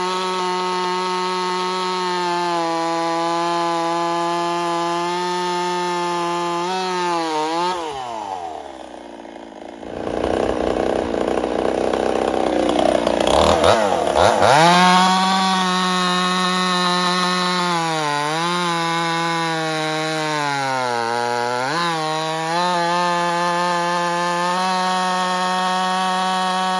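Ported Husqvarna 55 two-stroke chainsaw running at high revs. About eight seconds in it is pulled down hard and the chain rasps through wood for several seconds, then it revs back up and bogs briefly twice more. The saw is losing power, which the owner puts down to a scored aftermarket cylinder starting to fail.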